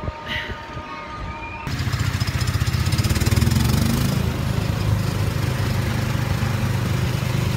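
A few faint steady tones, then, after an abrupt cut a little under two seconds in, a small engine running steadily with a fast pulsing beat.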